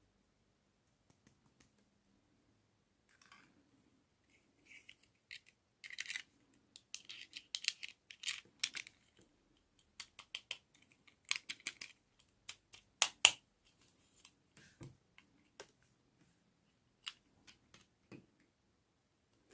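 Hands handling small objects: irregular small clicks, taps and rustles, thickest and loudest in the middle.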